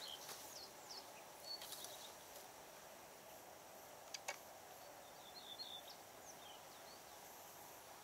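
Quiet riverside ambience with short, high bird chirps now and then, and a couple of sharp clicks about four seconds in.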